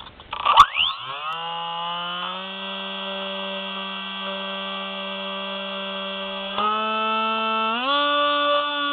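Spy Hawk RC plane's electric motor and propeller spinning up after a sharp knock, settling into a steady hum, then stepping up in pitch twice near the end as the throttle is raised.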